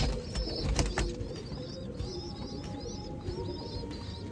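Racing pigeons in a loft cooing, with high chirps repeating throughout. A few sharp knocks come in the first second.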